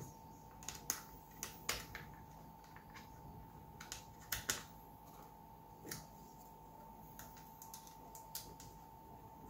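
Light, irregular clicks and taps of small screws, a hex key and hard plastic parts being handled while a light bar is screwed into an RC truck's plastic bumper.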